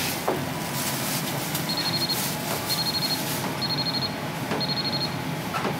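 T-Hotbox PDR induction dent-repair heater giving four short high beeps, about one a second, as its head is pressed to the panel. Each beep marks a brief heat pulse at the 0.5 setting that heats the steel to lift the remains of a dent.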